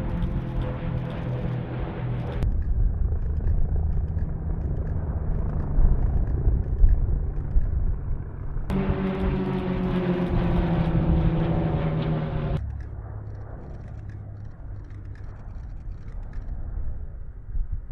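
Jet aircraft engine noise: a loud, deep rumble, with a pitched whine in two stretches. The sound changes abruptly several times, as at edits between shots.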